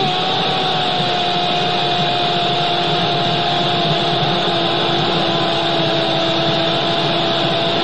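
Football commentator's drawn-out goal shout, one long held note that sinks slowly in pitch, over the steady roar of a stadium crowd celebrating a goal.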